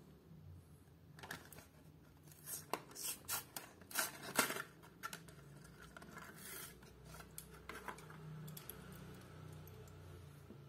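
Plastic blister and cardboard backing card of a Hot Wheels package being torn and peeled apart by hand: a run of crackling rips and scrapes, loudest about four seconds in, then a few faint clicks as the die-cast car comes free.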